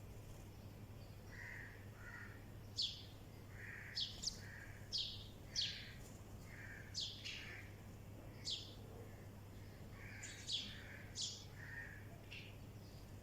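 Small birds chirping: about ten short, sharp notes that fall in pitch, scattered over several seconds, with softer, lower calls between them, over a faint steady low hum.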